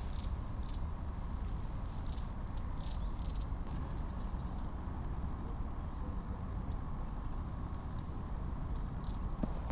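Small birds calling: a run of short, high calls about two a second for the first few seconds, then scattered thin high notes, over a steady low background rumble.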